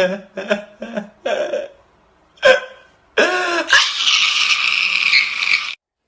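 A woman working up to sneezes, her voice catching in quick short gasps, then a sharp sneeze about two and a half seconds in. A second, drawn-out sneeze follows, ending in a long hissing blow that cuts off abruptly.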